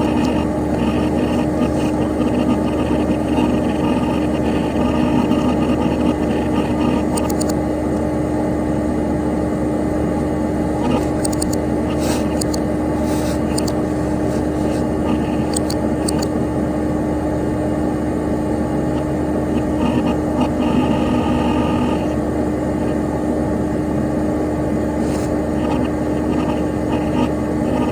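Dell Dimension XPS P100c desktop PC running: a steady whir from its cooling fan and spinning hard drive, with a constant hum-like tone and a few faint high ticks scattered through the middle.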